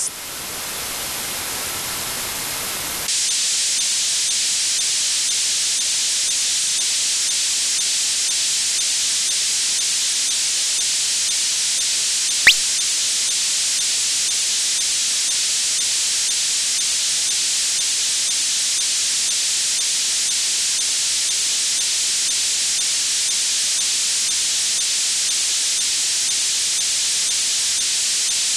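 Steady hiss from a software-defined radio's demodulated audio, an Inmarsat L-band satellite data carrier being fed to a decoder. It steps up in level about three seconds in, and a single sharp click comes about twelve seconds in.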